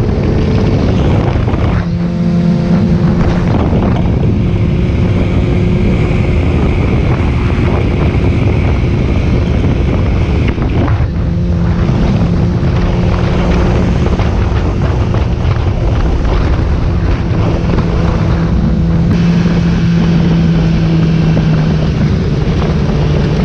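Yamaha R6 sport bike's inline-four engine running at a steady, fairly high speed while riding, with heavy wind buffeting the microphone. The engine pitch holds nearly constant, with a brief dip about two seconds in and again around eleven seconds.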